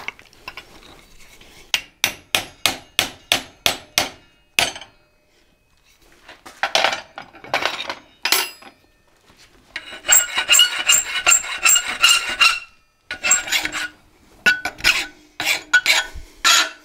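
Hand file rasping over red-hot steel clamped in a leg vise, in repeated strokes. Midway a quick run of strokes rings metallically. The steel is a hard high-carbon salvaged bar that will only file while hot.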